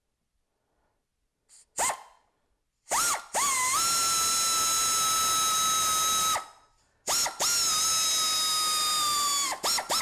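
Electric drill/driver running screws into a plastic housing: a short blip, then two steady runs of the motor of about three seconds each, each spinning up and cutting off, with quick blips of the trigger near the end.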